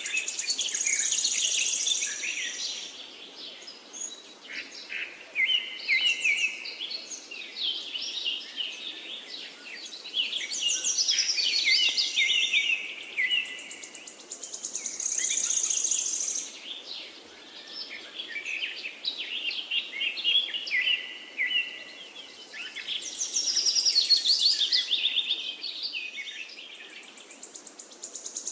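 Several birds chirping and singing at once, quick overlapping phrases with no pause, and a high buzzy trill that comes back every several seconds.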